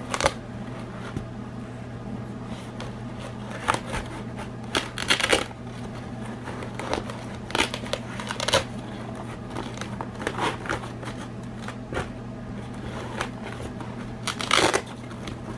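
Rustling and rubbing of a fabric car organizer being handled, its pockets and compartments opened and felt through, in short irregular bursts over a steady low hum.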